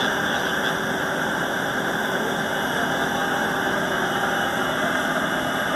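Steady engine noise: an even rushing sound with a faint hum underneath.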